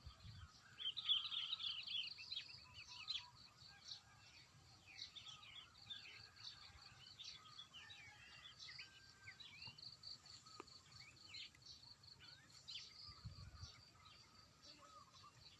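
Birds chirping and singing, with a busy flurry of calls in the first few seconds, over a steady high pulsing trill.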